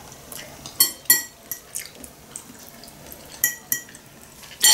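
Metal cutlery clinking and scraping against a ceramic plate while eating: a series of short ringing clinks, the loudest near the end.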